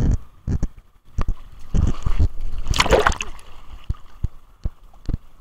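Shallow seawater splashing around a gloved hand held against the camera, with a string of short knocks and rubbing; the loudest splash comes about three seconds in.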